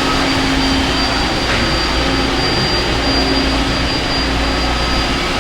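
Steady drone of running industrial machinery, with a constant low hum, a steady mid tone and a thin high whine.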